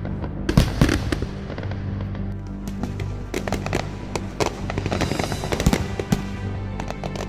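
Fireworks exploding in a fast, irregular run of bangs and crackles, thickest about a second in and again from about three and a half to six seconds in, over music with held notes.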